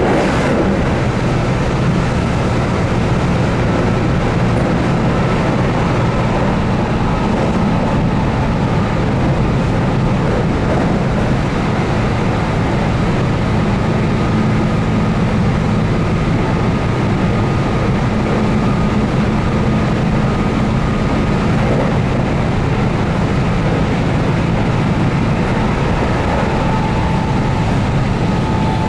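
Keihan 8000 series train heard from inside the car while running at speed: a steady rumble of wheels on rail with the hum of its DC traction motors under field-addition excitation control.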